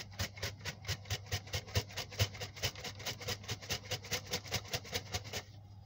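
Nash plastic bait bucket of wet particle mix (hemp, sweetcorn, krill) shaken back and forth to mix it, the bait knocking and swishing inside about five times a second. The shaking stops shortly before the end.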